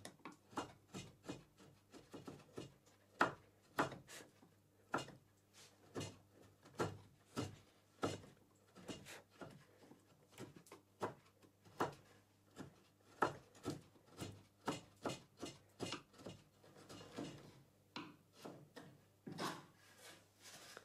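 Bench chisel paring oak by hand, a run of short crisp cuts about two or three a second as it cleans out a groove. Near the end come a few longer, softer rubbing sounds of a hand brushing across the board.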